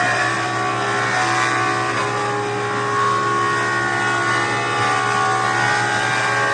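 Federal Signal Thunderbolt 1000T outdoor warning siren sounding steadily, several tones at once, with a slight waver in loudness.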